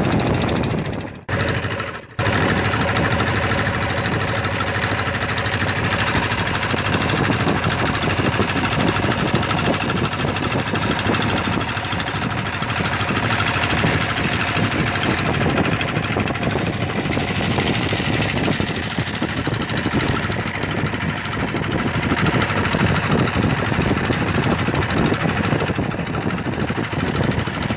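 Fishing boat's engine running steadily while the boat is underway, heard from on board. The sound cuts out briefly twice in the first couple of seconds.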